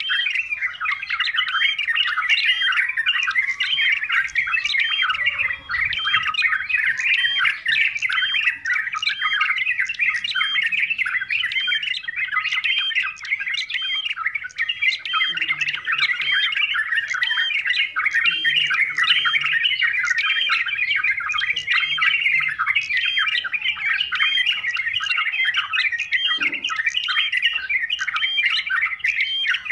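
Yellow-vented bulbul (trucukan) calling rapidly and without a break, short notes following one another so closely that they overlap into a continuous noisy chatter.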